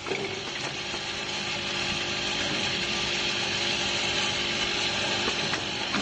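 Automatic caster wheel assembly machine running: a steady mechanical whir and hiss with a thin steady hum through most of it.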